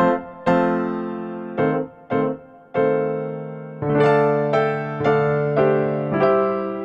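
Electric piano music: a slow tune of single notes struck one after another, each ringing and fading before the next, with a lower note held beneath in the second half.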